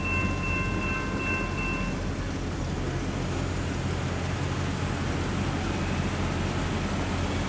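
Railroad grade-crossing warning bell ringing, stopping about two seconds in as the crossing gates lift. A low, steady rumble of road traffic continues underneath.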